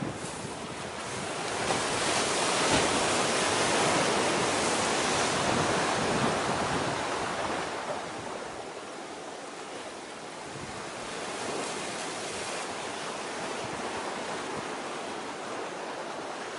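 Wind and sea noise: a steady rushing that swells a couple of seconds in and eases off after about eight seconds.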